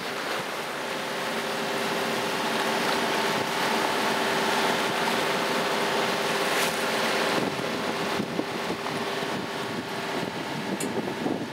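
Wind buffeting the microphone and water rushing past the hull of a sailing yacht under way on its auxiliary engine, with a steady engine hum that fades out near the end.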